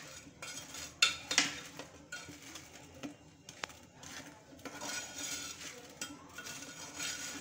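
A kitchen utensil clinking and scraping against a dish while syrup-soaked fried bread slices are turned in thick sugar syrup: a few sharp clicks about a second in and again around three seconds, then longer scraping strokes in the second half.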